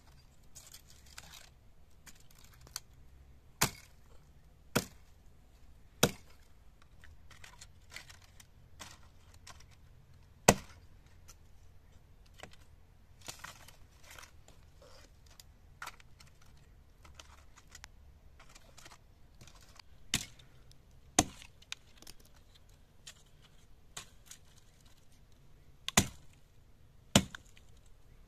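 Knife strikes on a wooden cutting board, slicing vegetables: irregular sharp knocks a second or several apart, with fainter cutting ticks between.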